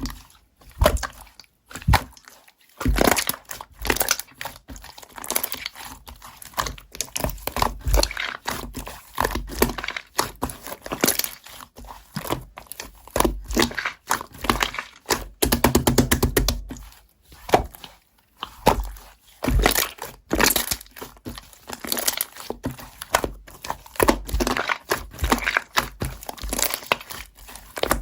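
Slime being squished and stretched by hand, giving a dense run of crackling, popping clicks and sticky tearing sounds with short pauses between handfuls.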